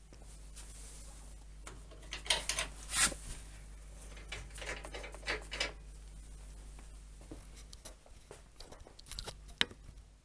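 Handling noise from a handheld camera being moved about and set down: bursts of rubbing and scraping against the microphone, then a few sharp clicks near the end, over a steady low hum.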